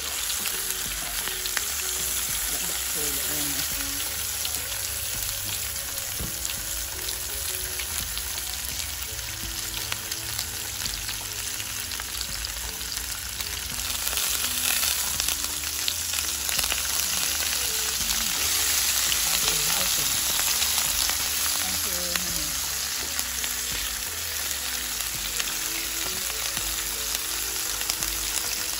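Noodles, greens, tofu and napa cabbage sizzling in a hot electric grill pan as they are stirred with metal tongs. The sizzling is steady and gets louder about halfway through, then eases again.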